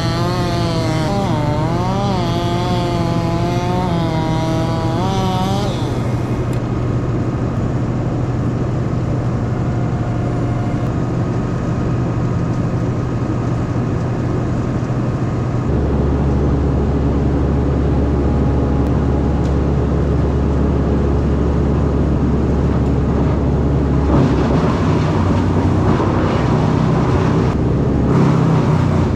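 Engines running. The pitch wavers up and down for the first few seconds, then settles into a steady drone with a deep hum that strengthens about halfway through, turning rougher near the end.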